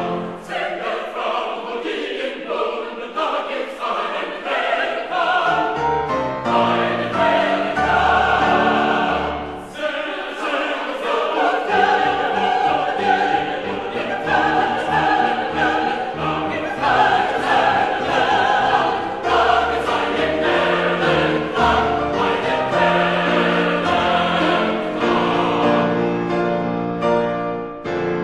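Background music: choral singing with held, overlapping notes.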